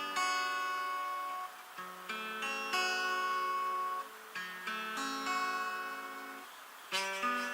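Acoustic guitar playing slow chords without singing: a chord is strummed about every two seconds and left to ring and fade before the next one.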